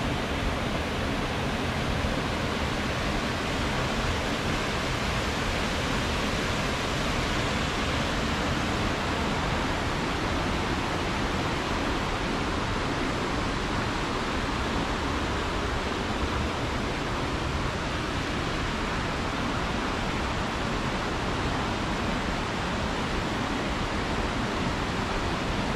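Steady rushing of a small waterfall pouring over a rock ledge, together with the creek running over rocks below it.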